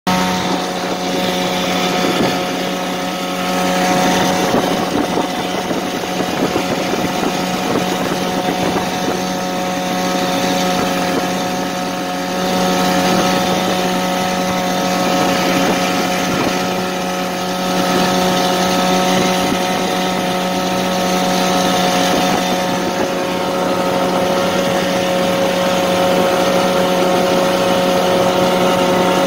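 Small outboard motor running at a steady cruising speed, pushing a loaded aluminium boat, its hum holding one constant pitch throughout.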